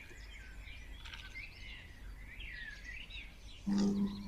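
Small birds chirping and twittering over a low outdoor background hum, with a brief, louder, low-pitched steady tone near the end.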